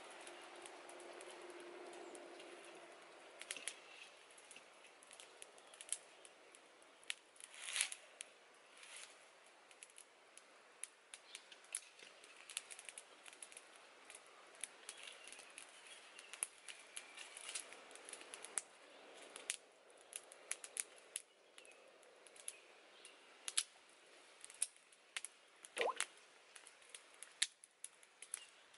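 Small wood fire crackling under a cooking pot: scattered sharp pops and clicks over a faint hiss.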